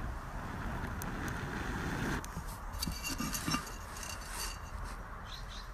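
Metal pendant chain and quartz crystal clinking and jingling lightly against each other and the terracotta pot as they are handled, in a run of small ringing ticks from about two seconds in, with a few more near the end, over a low steady rumble.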